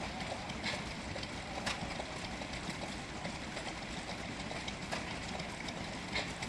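Large Ruston horizontal stationary engine with a big flywheel running slowly: a steady low rumble with a few sharp clicks.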